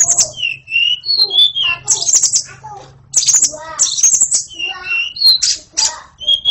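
White-rumped shama singing loudly and continuously, phrase after phrase with short gaps. The song mixes clear whistled notes that slide in pitch with fast, dry rattling trills and harsher squawky notes.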